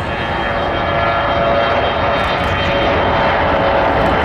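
Jet engines of an Airbus A330 airliner running as it rolls along the runway: a steady rumble with high whining tones over it, getting a little louder in the first second or so.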